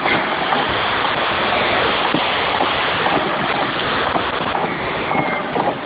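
Steady rushing road and wind noise inside a moving car's cabin, picked up by a hidden surveillance microphone.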